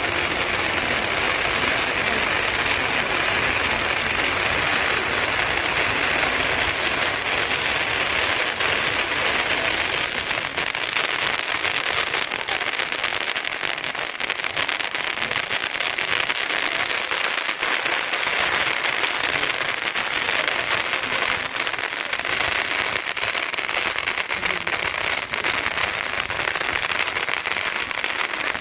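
Hand-held bamboo-tube fireworks (tezutsu hanabi) spraying sparks: a steady, loud rushing hiss with crackle that keeps up without a break.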